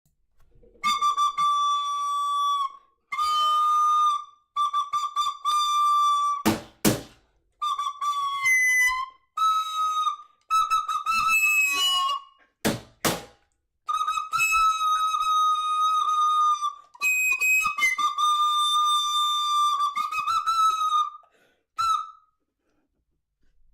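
A whistle-like wind instrument playing long held notes, mostly on one high pitch with a slight wobble, broken by short gaps. Two sharp knocks cut in, about seven and thirteen seconds in.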